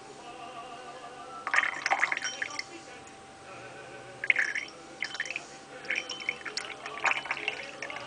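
Thin stream of water from a porcelain carafe trickling and splashing into a glass of absinthe in irregular bursts, the slow addition of water that louches the spirit.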